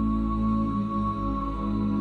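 Background music: calm new-age ambient music with long held tones.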